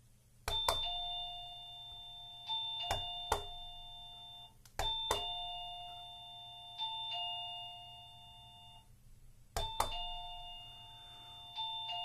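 ZemiSmart wireless doorbell chiming through its plug-in bell unit's loudspeaker. A short ding-dong tune of struck electronic notes plays three times, each about four seconds long, set off by presses on the battery-free kinetic push button.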